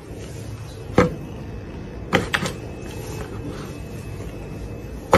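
A few light knocks and bumps on a plastic basin as a kitten steps into it: one about a second in, two close together a little past two seconds, and a louder one at the end, over a steady hiss.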